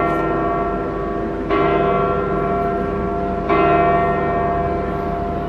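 Large church bell of St Peter's Basilica tolling slowly, struck about every two seconds, each stroke ringing on into the next.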